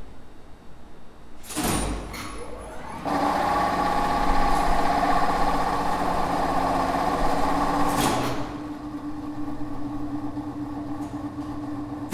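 Two-speed elevator traction machine with a squirrel-cage motor running one trip. A sharp clunk of contactors and brake comes about a second and a half in. From about three seconds the motor runs at full speed with a steady hum and whine. About eight seconds in, another clunk switches it to slow speed, and with the braking resistors disconnected it brakes abruptly. It then runs on at a lower hum until a final clunk as it stops.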